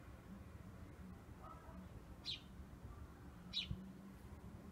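A bird chirping faintly: two short, high chirps that fall in pitch, just over a second apart, over a low steady hum.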